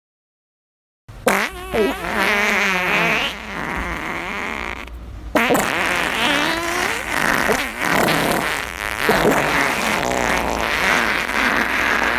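Long, loud fart sound effect: sputtering and buzzing with a wobbling pitch, starting about a second in after silence, with a brief break about five seconds in.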